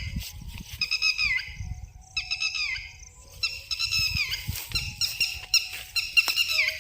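Birds calling: repeated bursts of short, high, downward-sliding calls, about one burst a second, over low thumping rumble.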